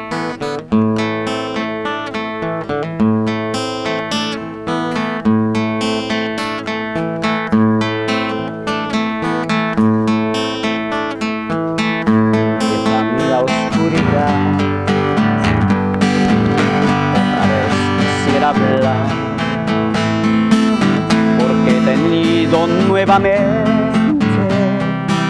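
Acoustic guitar playing a song's introduction with picked and strummed chords, before any singing. The music grows fuller about halfway through, with a wavering higher melody line joining.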